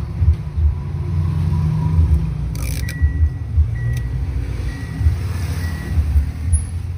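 A steady low rumble that wavers in strength, with a brief hiss about two and a half seconds in and a few light clicks.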